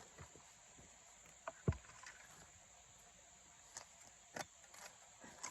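Shovel digging into rocky garden soil to lift sweet potatoes: a few scattered short scrapes and thuds, the strongest about a second and a half in.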